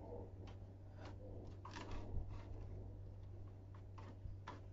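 Faint handling noises from a plastic toy car: a few scattered light clicks and taps as a photo is slipped inside it. A steady low hum runs underneath.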